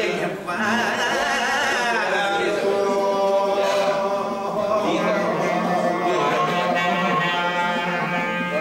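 A man singing a Greek folk song in long, ornamented held notes, with a clarinet playing along.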